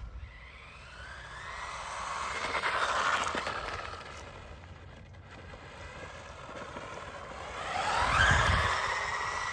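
Brushless electric motor and drivetrain of a 1/16-scale UDIRC 1607 Pro RC car whining at full throttle on asphalt. The whine swells about three seconds in, fades, then rises in pitch and grows loudest near the end as the car accelerates close by, with a low rumble at that moment.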